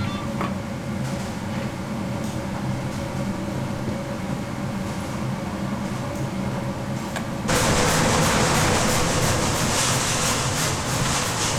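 A steady machine hum, then, about two-thirds of the way in, a sudden louder hiss and dense crackle of candy syrup boiling hard in a pan, cooked down and ready to pour onto the cooling plate.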